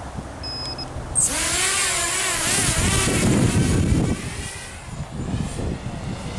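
Walkera F210 racing quadcopter's brushless motors and propellers spinning up for takeoff about a second in: a loud whine that rises and wavers in pitch with the throttle, then fades as the quad climbs away.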